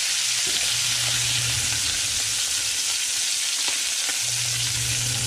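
Blackened red snapper fillets sizzling steadily in butter in a nonstick frying pan, with a few light scrapes of a spatula. A low hum underneath stops about two seconds in and comes back about two seconds later.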